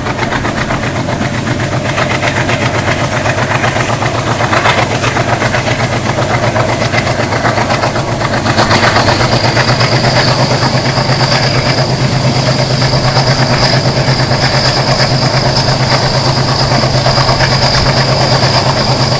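Twin WDM-3A ALCo diesel locomotives accelerating. The engines keep up a fast, steady chugging, while a high turbocharger whistle, the 'cooker' sound, slowly rises in pitch. About halfway through a second, lower whistle joins and holds steady as the sound gets a little louder.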